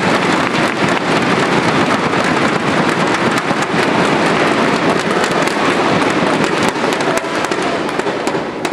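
A crowd cheering and banging inflatable thunder sticks together: a dense clatter of sharp claps that dies down near the end.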